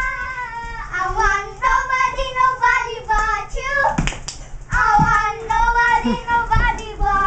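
A young child singing a tune in a high voice, the notes held and gliding, with a couple of short sharp smacks about four and five seconds in.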